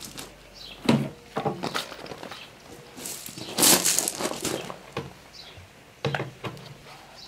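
Handling noises while working on a pine board box: a few wooden knocks as the boards are shifted, and a longer stretch of gravel crunching underfoot about three seconds in.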